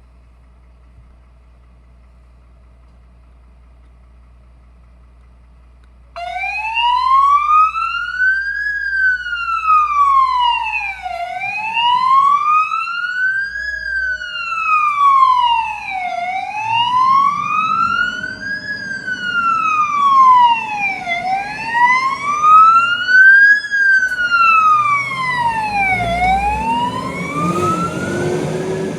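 Fire engine siren in wail mode, switching on abruptly about six seconds in and then rising and falling slowly in pitch about every five seconds, over a low engine rumble. Before it starts there is only a faint steady hum.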